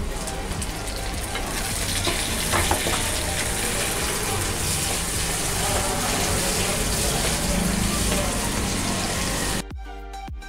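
Tempering of mustard seeds, onions, chillies and curry leaves sizzling in hot oil in the pan, with half a tomato just added. It cuts off abruptly near the end into background music.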